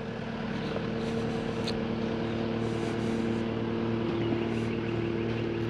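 An engine idling steadily off-camera, a constant hum of several steady tones, with a few faint footsteps on loose dirt.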